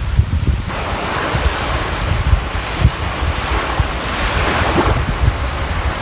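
Small waves breaking and washing up the sand at the shoreline, the surf coming in under a second in and swelling a couple of times. Gusty wind buffets the microphone throughout.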